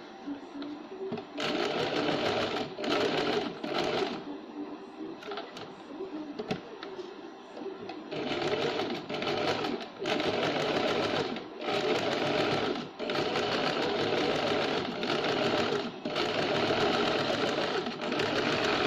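Electric domestic sewing machine stitching in runs of one to three seconds with brief stops between them as the fabric is guided around a curved seam. It starts about a second and a half in, with a quieter stretch in the middle.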